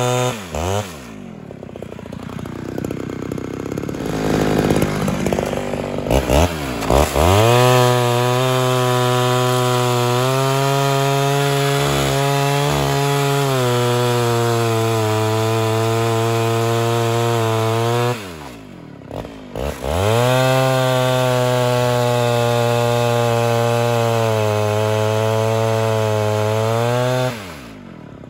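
Ported Homelite Super XL Auto two-stroke chainsaw cutting firewood rounds. It drops to idle about a second in, revs up and cuts for about eleven seconds with the pitch sagging under load, and eases off briefly. It then cuts again for about seven seconds before dropping back to idle near the end.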